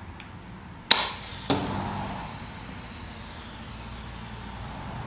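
Zippo stormproof match struck on its case striker about a second in, catching with a second flare half a second later, then a hissing burn that settles to a steady fizz.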